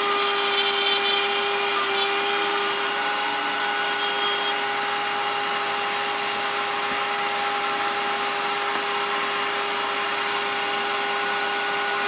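Bosch 1617 router, mounted upside down in a router table, running with an upcut spiral bit while cutting box joints: a loud, steady high-speed whine over a broad rushing hiss.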